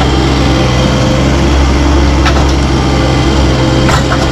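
Diesel engine of a compact construction machine running steadily under load, with two short sharp knocks, one about two seconds in and one near the end.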